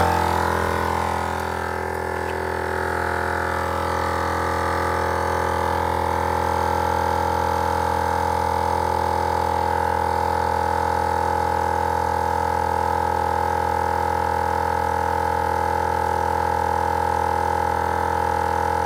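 Wolfbox dual portable air compressor running at a steady, even drone with a constant hum, working under load as it inflates a 40-inch tire from empty.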